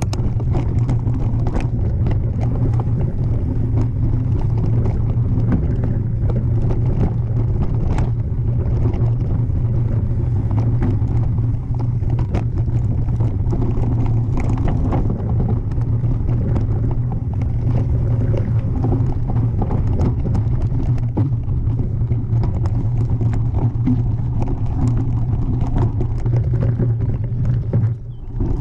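Mountain bike riding downhill over a rocky dirt singletrack, heard from a camera mounted on the bike: a steady low rumble of wind and tyres with frequent rattles and knocks from the bike on rough ground. The rumble dips briefly near the end.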